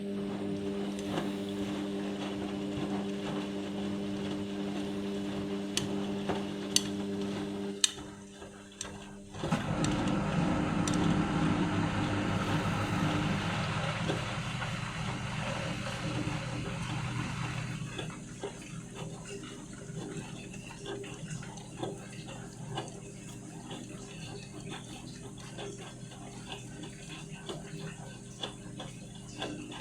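Indesit washing machine partway through its cycle. A steady motor or pump hum runs for about eight seconds, then a louder rush of water and sloshing follows. About halfway through it settles into quieter churning with light clicks.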